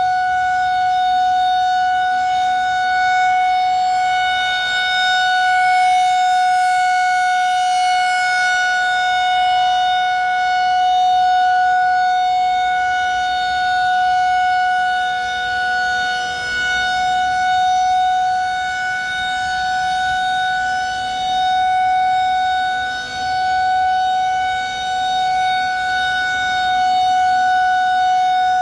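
Federal Signal 2001-130 electromechanical outdoor warning siren sounding the Alert signal: one steady, unbroken tone held at a constant pitch, its loudness swelling and dipping slightly.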